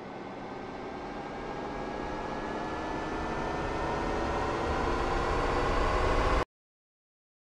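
Rocket engine sound effect for a lunar lander lifting off: a rumble with a whine that slowly rises in pitch, growing steadily louder, then cutting off suddenly into silence about six seconds in.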